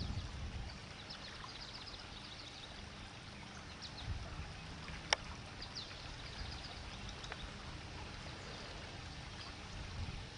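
Flowing floodwater under a steady low rumble, with scattered faint, short, high chirping notes and a single sharp click about five seconds in.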